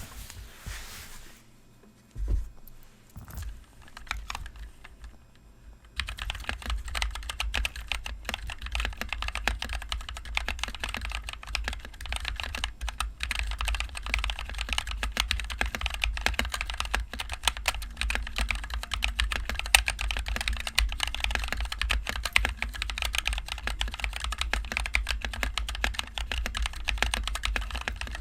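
Mechanical keyboard with NovelKeys Cream linear switches and HyperX Pudding keycaps being typed on. It starts with a pause holding only a few scattered keystrokes, then resumes as fast, continuous typing about six seconds in.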